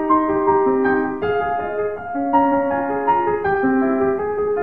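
Background piano music playing slow, held chords.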